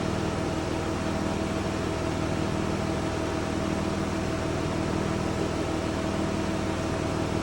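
Steady mechanical hum of a running machine, with a few fixed tones over an even whirr that holds unchanged throughout.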